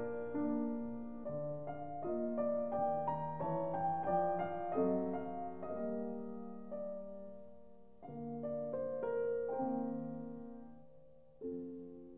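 Background piano music: a slow, gentle passage of notes and chords that ring and die away, growing quieter near the end.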